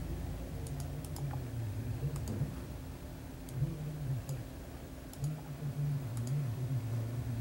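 Computer mouse clicking a few times, often two clicks close together, over a low hum.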